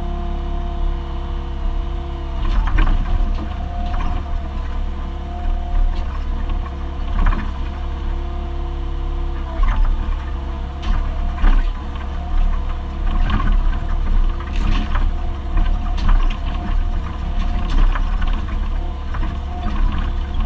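Excavator engine running steadily under load, heard from inside the cab, with a hydraulic whine that shifts in pitch as the controls are worked. Repeated knocks and cracks as the bucket rips a tree stump and its roots out of the ground.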